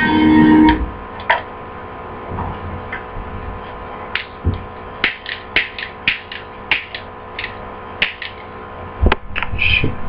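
Telecaster-style electric guitar through an amplifier: a fast phrase ends on a held note about a second in, leaving a steady amp hum. Over the hum come a run of short sharp clicks, a lighter being flicked, and a couple of low thumps near the end.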